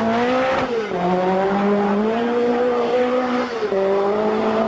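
Group B rally car engine running hard at high revs, its pitch dropping about a second in and again about three and a half seconds in, then climbing back each time.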